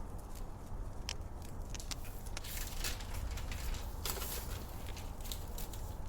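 Wood fire crackling, with irregular sharp pops and snaps that cluster more densely about halfway through, over a steady low rumble.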